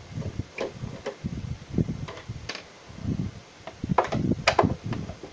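Clicks and knocks from a hand tool and hands working at the plastic back casing of a Samsung CRT monitor as its screws are taken out: scattered sharp clicks, the loudest two close together about four seconds in, over low handling knocks.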